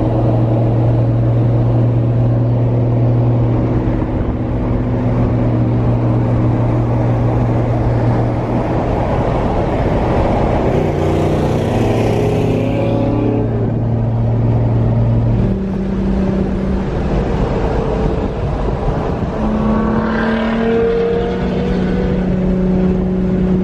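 Engine drone and road noise heard inside a car cruising at highway speed. The steady low hum shifts pitch a couple of times, and a brief rushing noise comes about halfway through.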